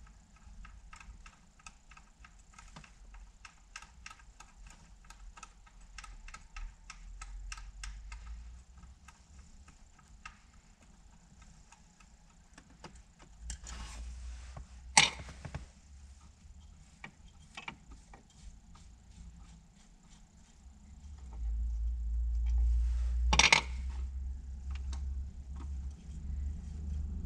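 Socket ratchet clicking in a quick even run, about three clicks a second, then scattered clicks with two sharp metallic clicks about eight seconds apart, and a low handling rumble near the end.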